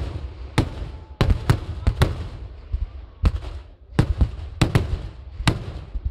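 Fireworks going off at ground level in about a dozen sharp bangs at irregular intervals, with a short lull about halfway through.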